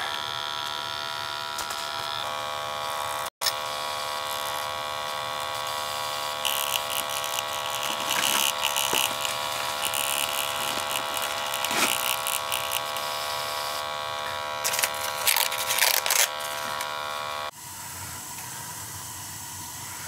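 Testo printer printing out a combustion analysis report: a steady whining motor buzz with rattly stretches, which cuts off abruptly near the end.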